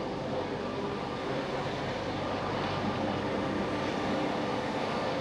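Steady street background noise: a continuous hum of traffic with faint steady engine tones, growing slightly louder toward the end.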